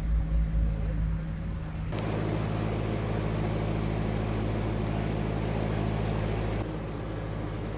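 Narrowboat diesel engine running steadily while cruising, a low even hum. About two seconds in, the sound changes abruptly and a broad hiss joins it, then the level drops slightly near the end.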